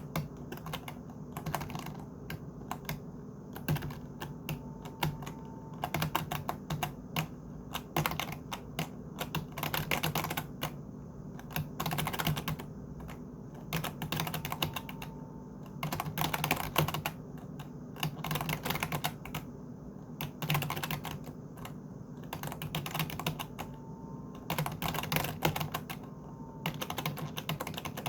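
Typing on a computer keyboard: bursts of rapid clicking keystrokes separated by short pauses.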